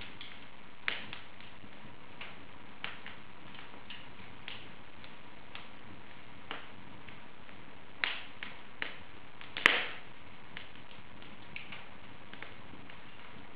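Wood fire in an open fireplace crackling: irregular sharp pops and snaps over a steady hiss, with the loudest snap a little over halfway through.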